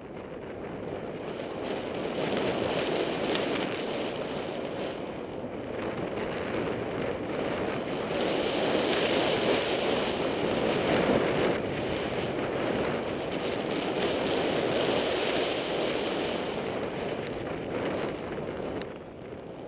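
Wind rushing over a goggle-mounted camera's microphone during a downhill ski run through deep fresh powder, mixed with the hiss of the skis in the snow. The rush swells and eases every few seconds and drops briefly near the end.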